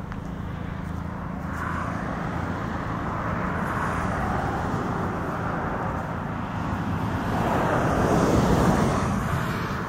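A motor vehicle passing: steady engine noise that grows louder over several seconds, peaks about eight seconds in, then fades.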